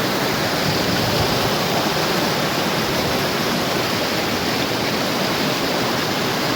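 A steady, even rushing noise with no rhythm or tones, starting and stopping abruptly.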